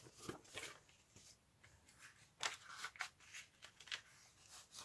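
Faint rustling and handling of paper sheets, with a few short crisp paper sounds scattered through, the loudest about two and a half seconds in.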